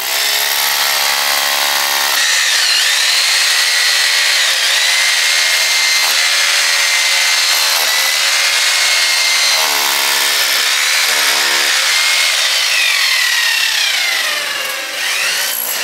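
Electric rotary hammer drill boring into a thick masonry wall, running continuously with a high motor whine that dips and shifts in pitch as it loads up. A coarser buzzing joins in near the start and again around ten seconds in.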